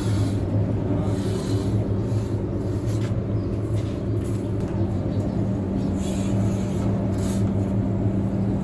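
A machine running steadily with an unbroken low hum, with a few faint light ticks over it.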